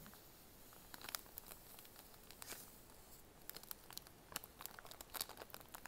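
A small candy powder packet crinkling and being torn open by hand: a string of faint crackles and short rips.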